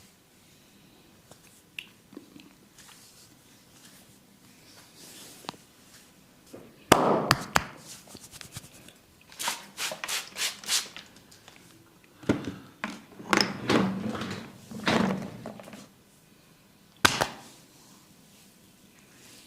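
Barber's percussive hand massage on the body and head: sharp slaps and taps in several bursts of quick strikes with pauses between, the loudest about seven seconds in and a last single burst near the end.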